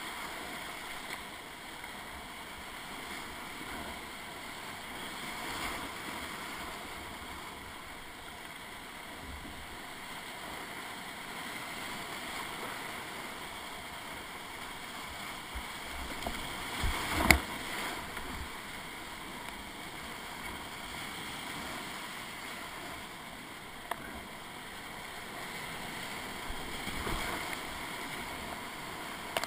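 Steady rush of whitewater rapids heard from a kayak running the river, with a sharp knock about seventeen seconds in and a couple of fainter clicks later.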